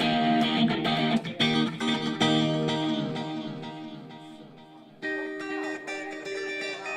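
Guitar strumming and letting chords ring. There are several strokes in the first couple of seconds that slowly die away, then a new chord about five seconds in.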